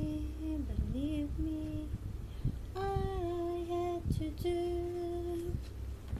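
A woman singing slow, long held notes in two phrases, with a short break about two seconds in.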